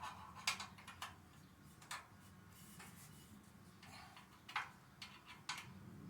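About a dozen sharp clicks and taps, irregularly spaced, from hand tools and metal parts being handled.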